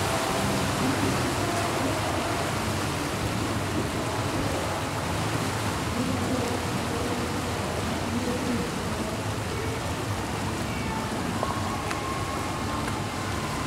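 Steady rushing and churning of propeller wash at the stern of a river passenger ship as it moves off from a pier, over a low engine hum.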